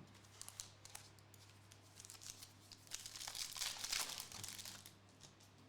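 Faint crinkling and tearing of a trading card pack's foil wrapper as it is opened, with light rustling of the cards, busiest about three to four seconds in.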